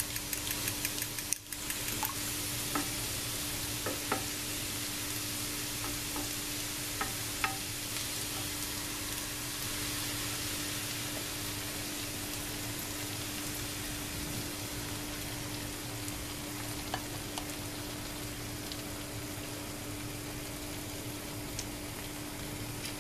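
Diced potatoes, vegetables and sucuk sizzling steadily in oil in a frying pan. For about the first second a fork clinks rapidly against a ceramic bowl as eggs are whisked, and a few light clicks follow later, over a steady low hum.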